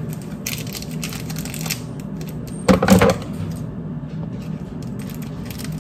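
Crinkling and rustling of plastic wrapping and flower stems being handled, with light clicks and taps, and one louder short sound about three seconds in.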